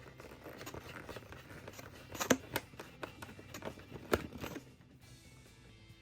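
Packaging being handled and opened while the toy cash register is unboxed: crinkling and rustling with a few sharp clicks and knocks, the loudest about two seconds in and another about four seconds in.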